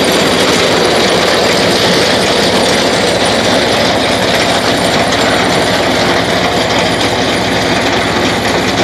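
Tractor-drawn elevator potato digger at work: a loud, steady rattling clatter from its shaking rod-chain conveyor sifting soil, with the tractor engine running underneath.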